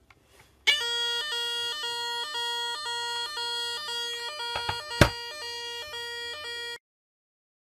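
Battery-powered fire alarm sounder giving its alarm signal: a steady, harsh pitched tone broken by short regular gaps. It starts about a second in and cuts off suddenly near the end, with a sharp knock about five seconds in.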